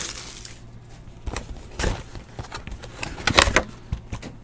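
Cardboard trading-card hobby box being handled: a few short taps and scrapes, the loudest cluster about three and a half seconds in, over a faint low hum.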